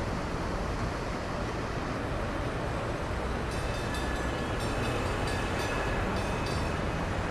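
Steady vehicle-like rumble and hiss with a low hum. Faint high-pitched tones and light clicks come in about halfway through and stop shortly before the end.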